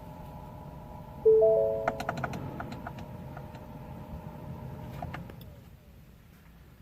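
Car instrument-cluster chime in a 2015 Ford Mustang with the ignition on: a bell-like tone of three pitches stepping in together about a second in and ringing on for several seconds as it fades. A few light clicks fall early in the ring, over a low steady hum.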